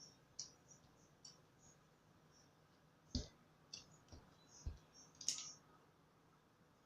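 Homemade PVA slime being worked by hand, giving faint, scattered sticky clicks and small pops, about seven of them, the loudest just past the middle.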